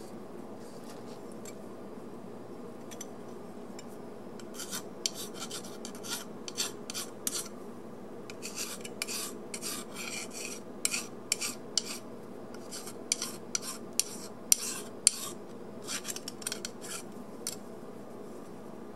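An 8-inch flat file rasping in quick, irregular strokes along the edges of a die-cast metal locomotive underframe, filing off casting flash. The strokes start about four seconds in and stop shortly before the end, over a steady background hum.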